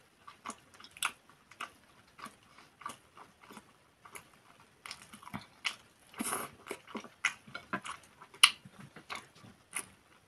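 Close-miked chewing of boiled pelmeni in sour cream: soft, wet mouth sounds with scattered small clicks, and a denser stretch about six seconds in.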